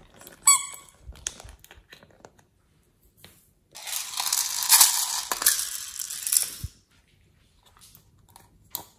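Hands handling small plastic toys and containers: a short squeak about half a second in and a few light clicks, then about three seconds of loud crinkling and crackling of plastic packaging being handled or torn.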